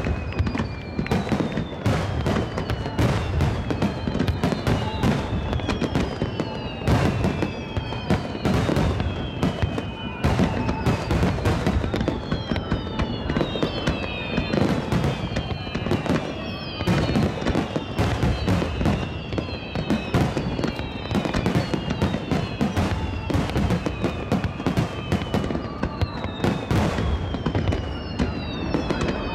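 Fireworks display: a dense, unbroken barrage of aerial shells bursting and crackling several times a second, with whistling tones that fall in pitch coming every second or two.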